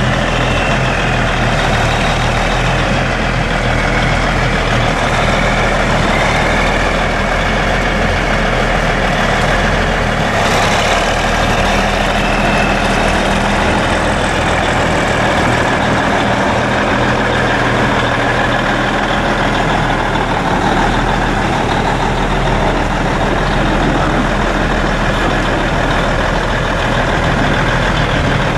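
Cummins NTA-855 six-cylinder turbo diesel of a 1994 John Deere 8970 4WD tractor idling steadily.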